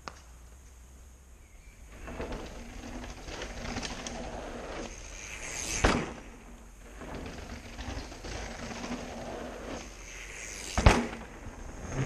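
Mountain bike tyres rolling over a dirt and gravel trail, growing louder as the bike comes down toward the camera and passing with a sharp crunch about six seconds in; a second sharp crunch comes about eleven seconds in.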